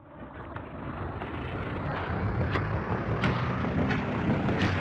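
Intro soundtrack fading in: a low rumbling drone with hiss and a few sharp crackles scattered through it.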